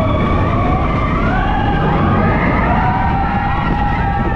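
Several roller-coaster riders screaming together in long, wavering cries at different pitches, over the steady low rumble of the coaster train running on its track.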